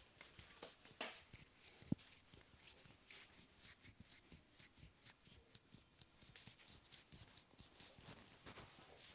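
Faint rustling and rubbing of a barber's hands working over hair and scalp in a head massage, with one sharp low thump about two seconds in.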